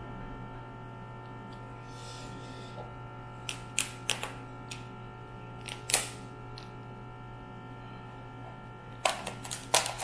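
Shell of a steamed mud crab cracking and clicking as it is pried apart by hand: a few sharp cracks around the middle, then a quick run of them near the end, over a steady low hum.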